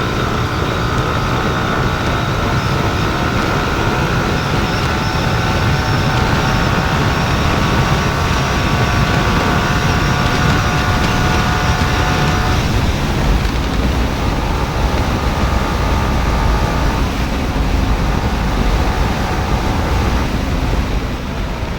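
Yamaha R15 V4's 155 cc single-cylinder engine under hard acceleration, its note climbing slowly through a long pull. A gear change breaks it about twelve seconds in, followed by shorter pulls. A steady rush of wind and road noise runs underneath.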